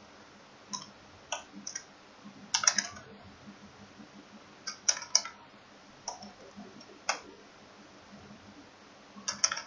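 Computer keyboard being typed on: scattered key clicks in short, irregular runs with pauses between them.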